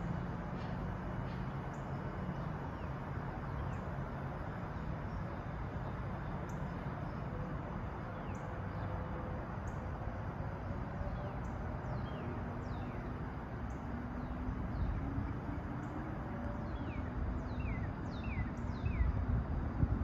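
A flock of gulls calling overhead: many short, high calls that slide downward in pitch, scattered throughout and coming thicker and louder near the end, over a steady background hiss and low hum.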